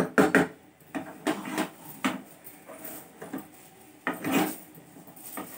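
Steel wire potato masher pressing and knocking cooked chana dal against a non-stick kadhai: a quick run of clanks at the start, then slower scattered knocks and squelches.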